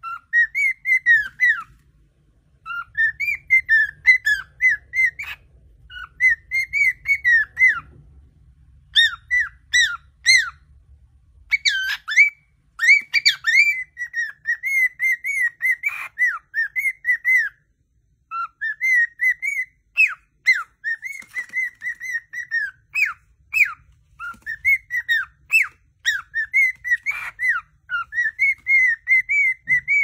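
Cockatiel whistling: fast runs of short chirping whistle notes, each bending up and down, in phrases of a few seconds with short pauses between.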